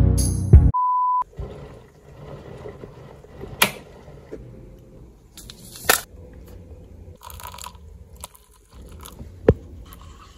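Background music cuts off within the first second, followed by a short steady high beep. Then come quiet room sounds, with a few sharp clicks and light scraping as a paper cup with coffee sachets is handled and coffee is stirred with a wooden stirrer.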